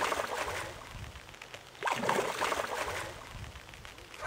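Water splashing hard at the lake surface close to the bank, twice: one splash already under way and dying off within the first second, then a second one starting about two seconds in and lasting about a second.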